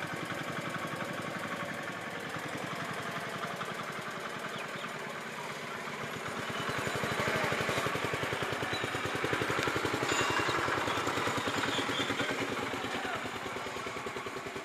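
A small engine running steadily, its rapid even firing pulses growing louder about halfway through and easing off again near the end.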